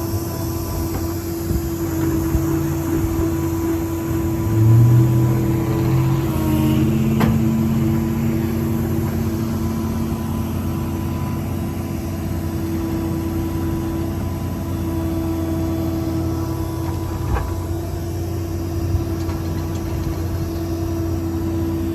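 Ford 6.7 Power Stroke V8 diesel running steadily, driving a PTO hydraulic pump, as the service-body crane is swung side to side. Its steady hum carries extra tones that come in, shift in pitch and drop out as the hydraulic controls are worked, with a brief surge about five seconds in.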